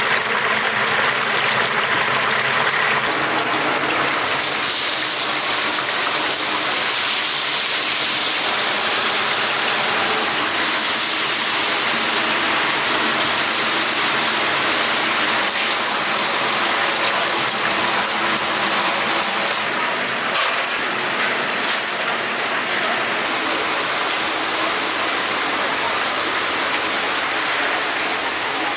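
Chicken deep-frying in a cauldron of hot oil: a loud, steady sizzle, with a few sharp clicks about twenty seconds in.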